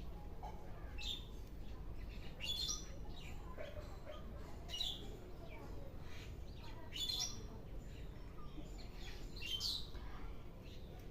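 A bird chirping: a short, high call repeated about every two seconds.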